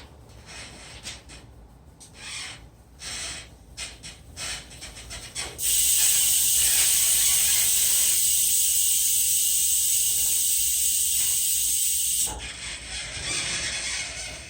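Mountain bike rear freehub clicking: several short bursts of pawl ticking, then from about six seconds in a loud, steady, high buzz as the wheel freewheels fast, cutting off abruptly after about seven seconds, followed by softer ticking.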